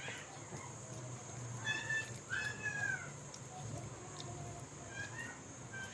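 A cat meowing: a few short, high calls about two seconds in, one rising and falling, and a fainter call near the end.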